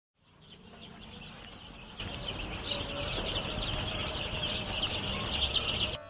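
Chickens calling: many short, high chirps overlapping continuously, louder from about two seconds in.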